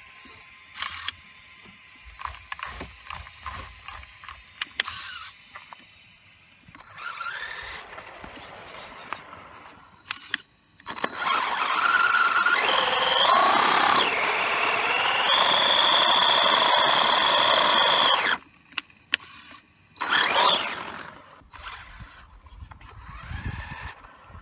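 Maverick Strada SC's brushless electric motor whining at high revs as it spins the rear wheels with the front wheels locked, a line-lock burnout. After a few short blips, there is one long full-throttle run of about seven seconds in the middle, its pitch rising sharply and then holding steady. Shorter revs that rise in pitch follow near the end.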